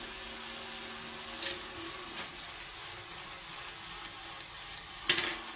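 Small Lego motor-driven robot running, with its gear train and treads whirring steadily as a rack-studded program card is drawn through the gears. The card is a straight program, so both treads turn the same way. A few light clicks sound, with a sharper click about five seconds in.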